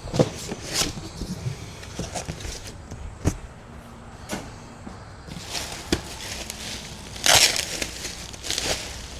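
Cardboard box and plastic packaging handled while a large portable fridge is unboxed: scattered knocks and thuds with crinkling and rustling, the loudest rustle about seven seconds in.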